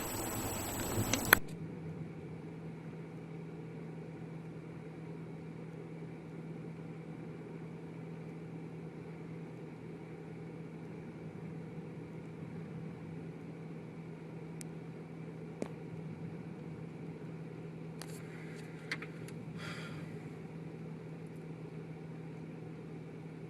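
A loud rushing noise cuts off about a second and a half in. It gives way to a steady low hum over a faint hiss, with a couple of faint clicks and a brief rustle near the end.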